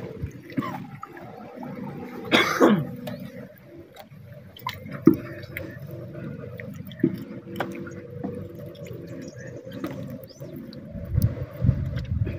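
Sea water dripping and splashing around a small outrigger boat as a wet gill net is handled and fish are picked out of it, with scattered small clicks and a faint steady hum. A short, loud falling sound comes about two and a half seconds in.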